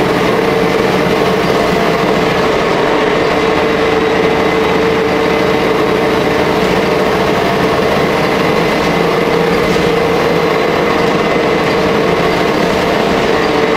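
Jelcz L100 city bus heard from inside the passenger saloon while under way: steady engine and running noise with a prominent steady mid-pitched hum.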